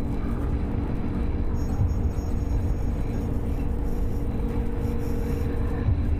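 A steady low rumble, with a faint held tone above it that stops near the end.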